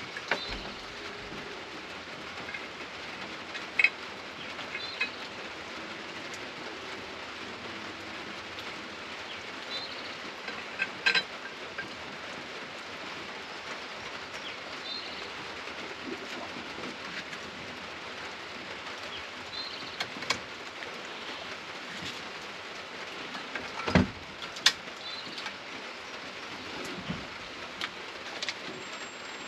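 Steady rain falling, with a few sharp knocks scattered through it, the loudest about three quarters of the way through, and faint bird chirps every few seconds.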